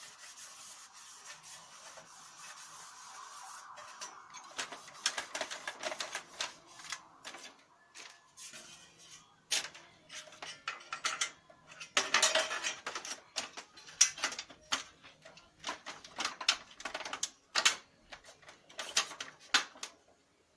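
Lexmark X364dn laser printer mechanism running: a steady whir for the first few seconds, then a long run of irregular clicks and clacks.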